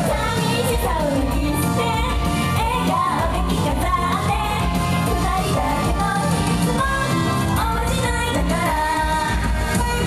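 Japanese idol pop song played live: female voices singing a melody over a backing track with a steady beat.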